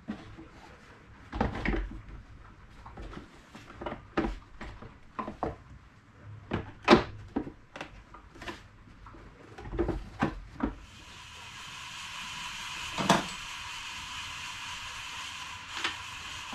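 Plastic parts of a vacuum cleaner being handled and pulled apart: a run of irregular clicks and knocks, the loudest about seven seconds in. About eleven seconds in, a steady whirring hiss with a faint high tone comes in and holds.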